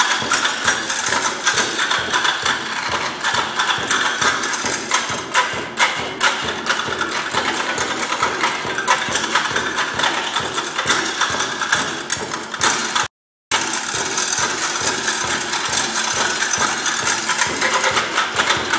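Several performers drumming fast rhythms with drumsticks on stepladders: a dense, rapid run of strikes throughout, with the sound cutting out completely for a moment about two-thirds of the way through.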